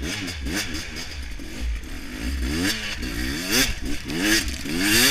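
Trail motorcycle engine revving up and down over and over as the throttle is worked, climbing higher near the end, with knocks and clatter mixed in.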